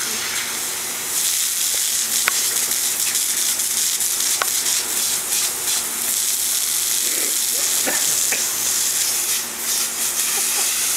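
Water spraying from a garden hose and splattering on wet asphalt and bare skin: a steady hiss.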